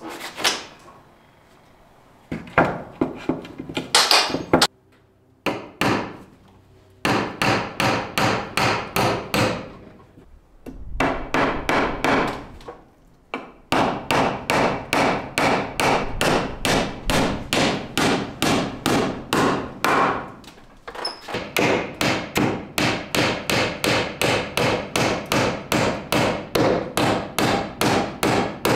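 Hammer driving nails into reclaimed wooden decking boards on a wall, in runs of quick, even blows about three a second with short pauses between runs.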